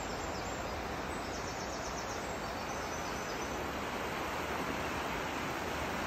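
Shallow river flowing over a stony bed: a steady rushing hiss. A faint, quick high-pitched ticking runs for about a second, starting a little over a second in.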